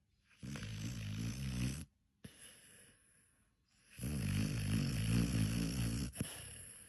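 A dog snoring: two long, rough snores, the first about a second and a half long and the second about two seconds, with quieter breathing between them.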